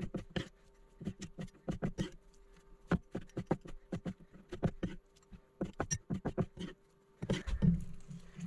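Cleaver chopping tomatoes on a wooden cutting board: quick, irregular knocks of the blade against the board, several a second, with a heavier thump about seven seconds in.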